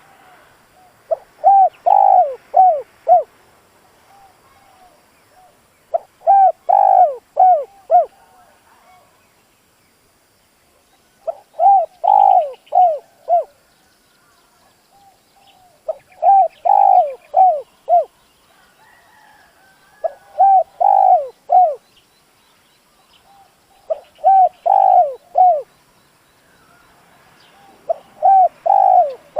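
Spotted dove (cu gáy) crowing: seven phrases of four or five hoarse cooing notes, each phrase lasting about two seconds and repeating every four to five seconds. This is the loud, insistent cock's crow that keepers use to provoke rival wild doves.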